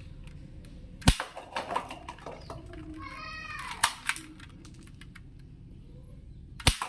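Sharp plastic clicks and clacks from a toy gun being handled and worked, the loudest about a second in and another just before the end, with lighter clicks in between.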